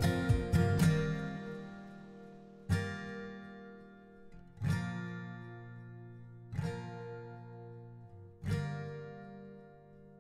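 Background acoustic guitar music: a quick run of strums at the start, then single strummed chords about every two seconds, each ringing out and fading away.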